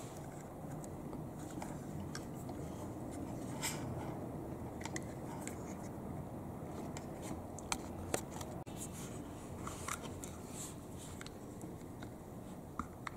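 Scattered small clicks and scrapes of a metal Stanley retractable utility knife being handled, its lever and blade slider worked, with two louder clicks about eight seconds in. A steady low background noise underlies it.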